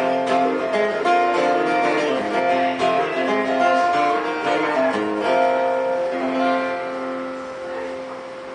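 Acoustic guitar playing a lively instrumental passage of quick plucked notes. From about five seconds in, a final chord rings out and slowly fades.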